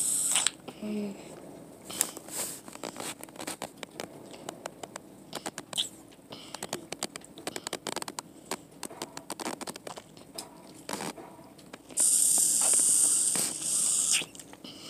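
A child drinking from a plastic sippy cup: a run of irregular wet sucking clicks and crackles at the spout, with a loud hissing rush for about two seconds near the end.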